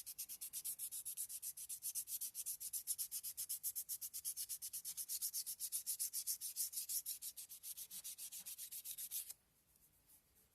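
400-grit sandpaper rubbed by hand over a wooden gun stock wet with linseed oil, working the oil into the wood to fill the grain. It makes rapid, even, rasping strokes, several a second, that stop abruptly near the end.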